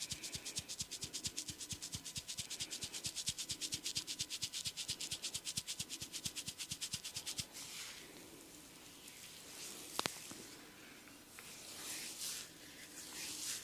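Hands rubbing a man's hair and scalp during a head massage, at first in fast, even strokes of about five a second, then in slower, irregular rubs from about seven seconds in. A single sharp click comes about ten seconds in.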